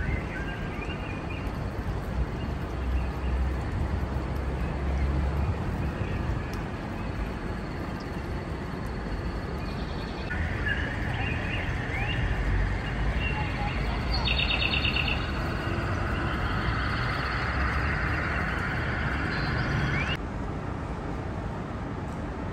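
Outdoor garden ambience: a steady low rumble with indistinct voices and birds chirping now and then. A higher hiss stops abruptly near the end.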